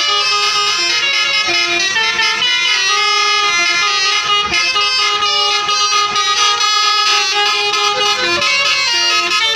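Tour buses' Basuri 'telolet' musical horns playing tunes, note after note without a break, in a horn battle between buses.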